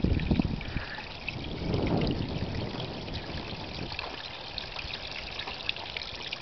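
Water trickling and splashing as it spills from pipe spouts down a cascade of stone-filled terracotta pots into a small pond. Some low rumbles come near the start and again about two seconds in.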